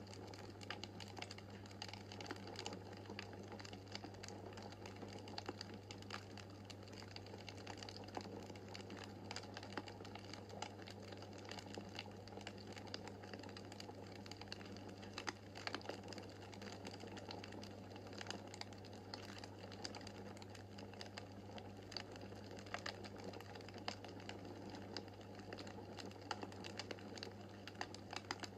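Wood fire crackling in a fireplace: frequent small, sharp pops and snaps at irregular intervals over a soft steady rush, with a low steady hum underneath.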